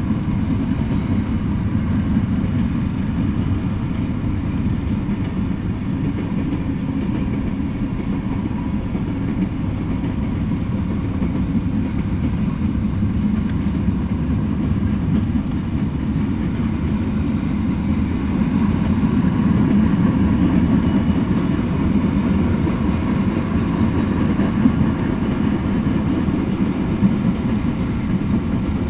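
Freight cars rolling past on the rails: a steady low rumble of steel wheels on track, with a couple of sharper knocks near the end.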